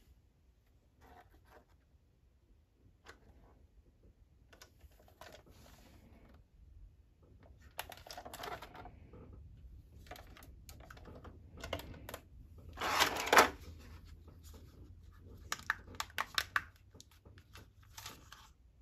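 A plastic toy RC bus and its transmitter handled in a clear plastic blister tray: scattered clicks, taps and crinkling of the plastic, with the loudest rustle about two-thirds of the way through and a quick run of sharp clicks soon after.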